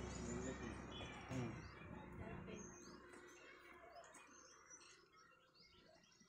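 Small birds chirping, many short high calls sliding in pitch, over a low rumble that fades away during the first three seconds.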